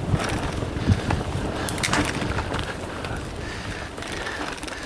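Full-suspension mountain bike rolling over a dirt forest trail: tyres crunching on dirt and leaves, with the bike rattling and clunking over bumps and wind rushing on the microphone. A couple of low thumps come near the start and about a second in, sharp clicks about two seconds in, and it gets somewhat quieter over the last couple of seconds.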